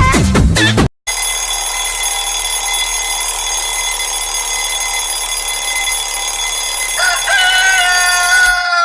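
Electronic dance music from one alarm tone cuts off about a second in, then a recorded rooster-crow alarm tone plays: a steady held sound, ending with a crow whose pitch falls away near the end.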